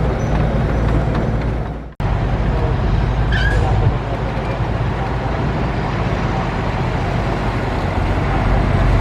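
Diesel engine of heavy earthmoving equipment running steadily. The sound drops out abruptly about two seconds in and comes straight back, and there is a brief high squeak a little later.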